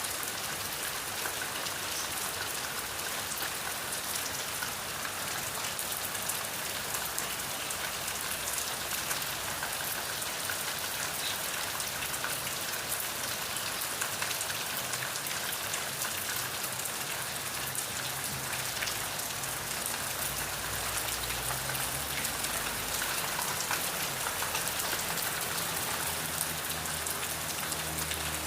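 Steady, heavy rain falling on a surface, a dense even hiss of many drops. A low rumble joins underneath in the second half.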